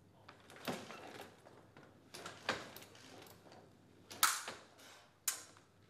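Fencing sabre blades clashing and scraping in a quick exchange: a string of sharp metallic clacks with a short ring, the loudest about four seconds in and another just after five.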